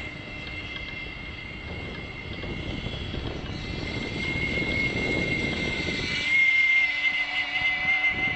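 Radio-controlled Cigarette offshore model powerboat running at speed, its OPS 3.5 glow engine with silenced pipe giving a steady high-pitched whine. Wind buffeting the microphone rumbles underneath and drops away about six seconds in, as the engine note grows louder.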